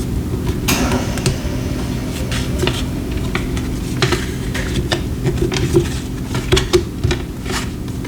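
Tarot cards being gathered up off a table and shuffled: a run of light, irregular clicks and snaps over a steady low hum.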